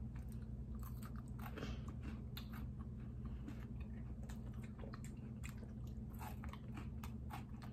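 Close-up biting and chewing of a crunchy chocolate-covered wafer bar, many irregular crackles and wet mouth clicks, over a steady low hum.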